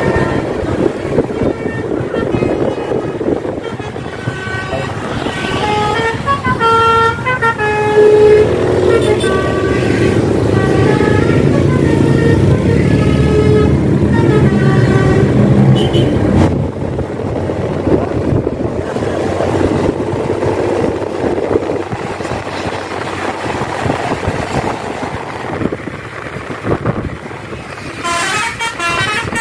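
Tour bus's 'basuri' telolet musical horn playing a melody of short tones stepping up and down in pitch, then a second burst of melody near the end, over steady road and wind noise.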